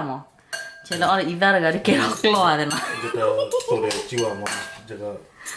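A metal spoon clinking and scraping against a ceramic bowl as a salad is tossed, with repeated sharp clinks. A man's voice talks over it.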